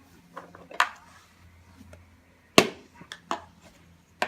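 A hand tool knocking and tapping against a lawnmower: about six sharp, irregular strikes, the loudest about two-thirds of the way through.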